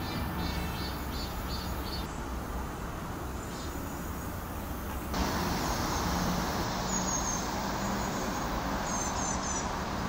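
Outdoor summer ambience: a steady rushing noise bed with faint insects pulsing rapidly in the first couple of seconds. The sound changes abruptly about halfway through, and a few short high chirps come near the end, three in quick succession.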